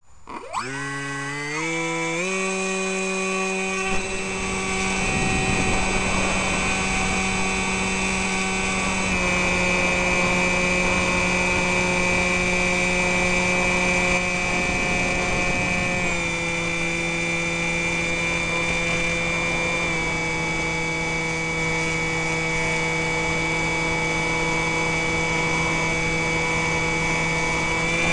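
Electric RC plane's motor and propeller whining, heard from a camera on board. It spins up in steps over the first two seconds, then holds a steady pitch over a rushing noise, with small drops in pitch about 9, 16 and 20 seconds in as the throttle is eased back.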